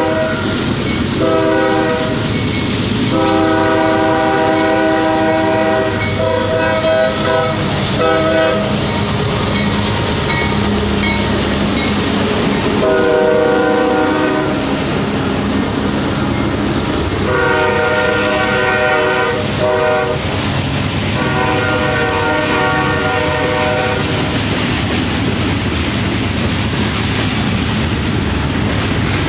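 A CSX freight locomotive's air horn sounding a chord in a series of long and short blasts, as for a grade crossing, over the rumble of the train. For the last few seconds the horn stops and only the rumble and wheel clatter of the passing covered hopper cars remains.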